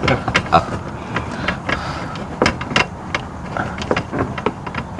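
Screwdriver digging and scraping hardened silicone out from around awning wiring: irregular sharp clicks and short scrapes of metal on metal and plastic.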